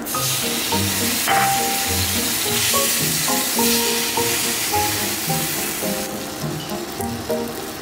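Sauce sizzling as it hits a hot stainless steel frying pan around grilled rice balls. The sizzle is strongest for the first six seconds, then thins out. The sauce is burning on the pan even at low heat.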